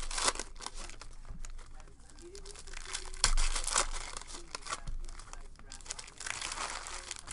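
Foil baseball-card pack wrapper being torn open and crinkled by hand: a run of irregular crackling rips, loudest a little past three seconds in.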